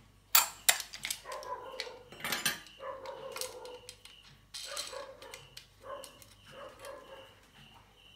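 Two sharp clicks of the aluminium antenna parts being handled in the first second, then a dog barking repeatedly in the background.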